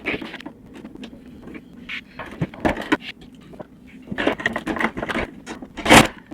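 Screwdriver and plastic parts of a Pentair Kreepy Krauly Racer pool cleaner being handled during disassembly: irregular clicks, scrapes and knocks, with one louder knock near the end.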